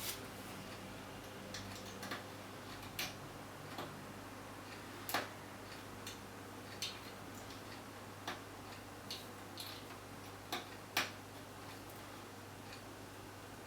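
About a dozen sharp, irregular clicks and taps of hard parts being handled while working on a desktop computer, the loudest about five and eleven seconds in, over a faint steady low hum.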